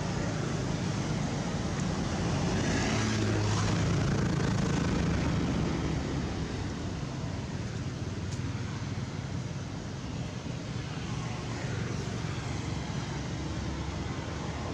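Low rumble of a distant engine over steady outdoor background noise, swelling from about two seconds in and easing back by about six seconds.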